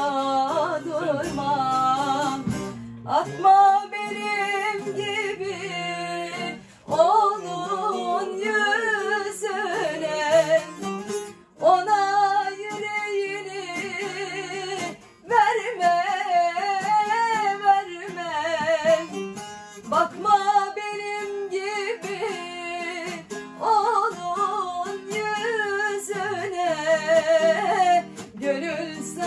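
A woman singing a Turkish folk song (türkü) in wavering, ornamented vocal lines, accompanied by a plucked bağlama (long-necked Turkish lute). The sung phrases break off in short pauses every few seconds.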